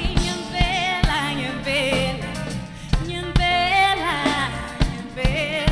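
Urban soul-jazz band playing live: a singer holds and bends long vibrato notes and runs over bass, keys and drums, with several sharp drum hits.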